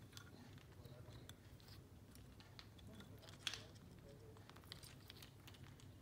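Green parrot's beak nibbling and tapping at plastic toys: faint scattered clicks and scrapes, with one sharper click a little past halfway.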